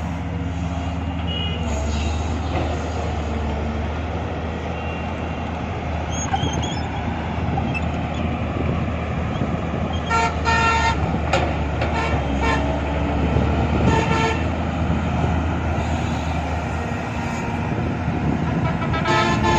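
A heavy engine runs steadily, with several short vehicle horn honks from about halfway through to near the end.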